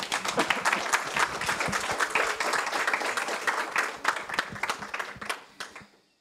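Audience applauding, a dense patter of many hands clapping that thins out near the end and then cuts off abruptly.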